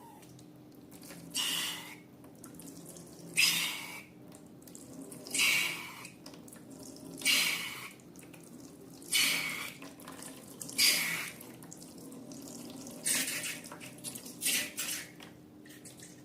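Slime being squeezed and squished by hand, a short wet squelch about every two seconds, eight in all, over a faint steady hum.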